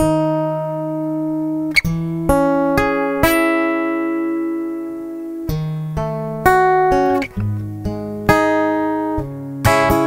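Background music on acoustic guitar: slow plucked notes and chords, each left to ring out and fade before the next.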